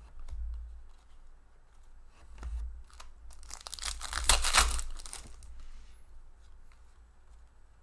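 A trading-card pack wrapper torn open by hand. The crinkling tear is loudest from about three to five seconds in, with light clicks from cards being handled before it.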